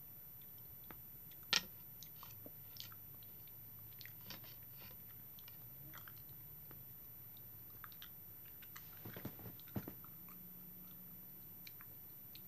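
Chewing a mouthful of honeycomb, wax and all: scattered soft wet clicks from the mouth, the loudest about a second and a half in and a quick cluster of them later on.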